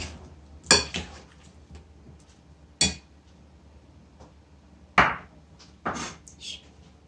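Metal spoon knocking and clinking against a glass mixing bowl as fruit is stirred in cream: several separate knocks, the loudest about five seconds in.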